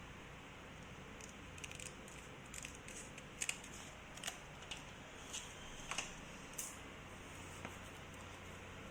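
Scissors cutting screen repair tape: about ten short, irregular snips and crinkles spread over several seconds.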